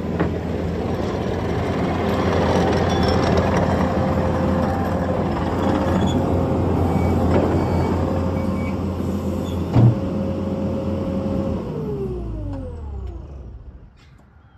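Mustang compact track loader's diesel engine running as the machine drives close by, with a steady whine over the engine and a sharp metallic clank about ten seconds in. Near the end the engine pitch falls and the sound dies away.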